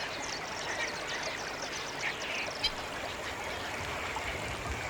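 Waterbird colony calls over a steady wash of background noise: many short, high chirps with a few brief squawks.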